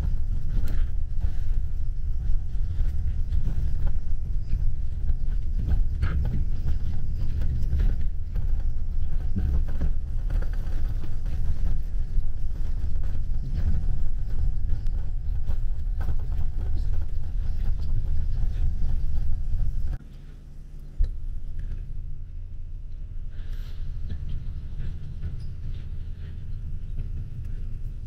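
Road noise of a coach bus heard from inside the cabin: a steady, heavy low rumble of tyres and drivetrain. About twenty seconds in it drops suddenly to a quieter level, with a single knock a second later.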